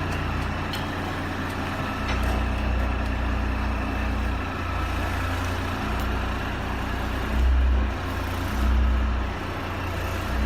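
A motor or engine running steadily with a low rumble that swells and eases now and then, with a few faint clicks.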